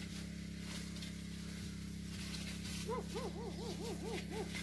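A bird calls a quick run of about seven hooting notes, each rising then falling in pitch, starting about three seconds in, over a steady low hum.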